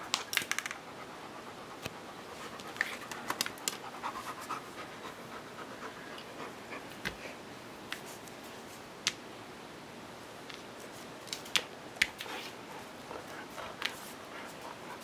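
A dog panting close by, with scattered sharp clicks and taps of claws on a wooden floor.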